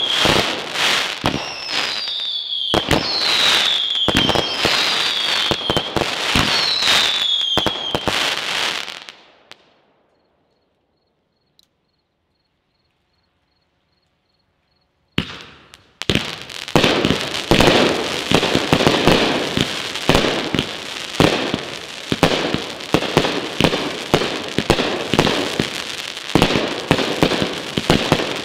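Consumer firework cakes and shells going off: dense crackling and rapid bangs, with a string of short falling whistles. The sound fades and cuts out to silence for about five seconds. Then a new volley of rapid bangs and crackle starts and keeps going.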